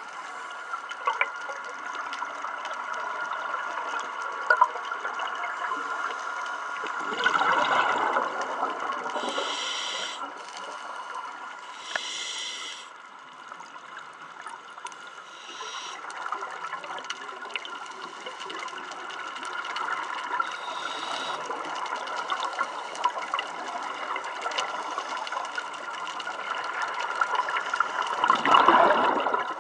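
Scuba regulator breathing heard underwater: short hissing inhalations and bubbling, gurgling exhalations, the loudest bubble bursts coming about seven seconds in and near the end. A steady underwater hum lies underneath.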